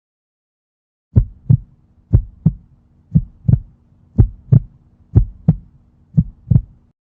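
Heartbeat sound effect: six lub-dub double thumps, about one a second, over a faint steady hum.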